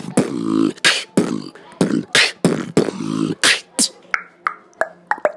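Human beatboxing into cupped hands: a rhythmic beat of sharp hissing snare-like strokes over hummed bass notes, switching to quicker short pitched clicks in the last second or so.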